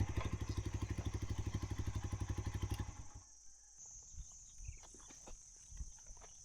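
Motorcycle engine idling with an even, rapid beat, running again now that its non-starting (clicking) fault has been fixed, then switched off about three seconds in. A few faint knocks and clicks follow.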